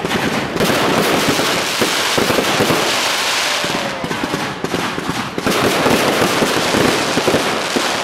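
Fireworks display going off: a dense, continuous barrage of bangs and crackling from rockets and gold starburst shells.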